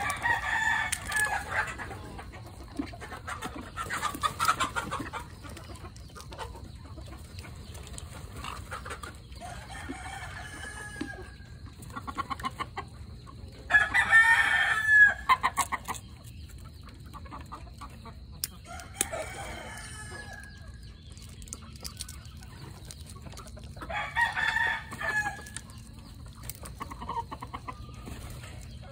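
Chickens clucking and a rooster crowing in bouts every few seconds, the loudest about halfway through.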